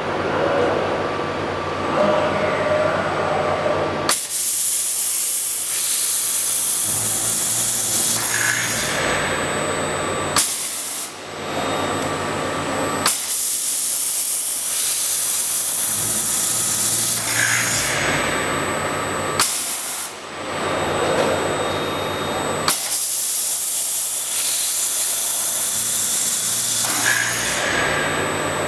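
PCS BT40 CNC drilling head (8 hp, 3000 rpm spindle) on a plasma cutting table drilling a series of holes in steel plate. After a few seconds of low running hum come three drilling cycles of about six seconds each, each a loud steady hiss. Short pauses separate them, each starting and ending with a sharp tick.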